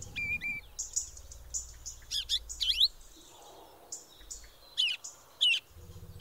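Small songbirds chirping: short, quick high calls repeated irregularly, about one every second.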